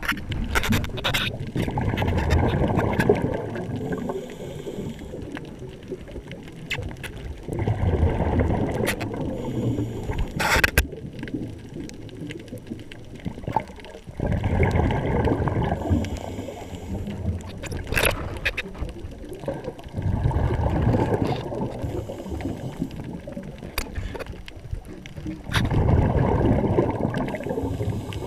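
Scuba diver breathing underwater through a regulator: a burst of exhaled bubbles every five to six seconds, five in all, with quieter stretches and scattered sharp clicks between.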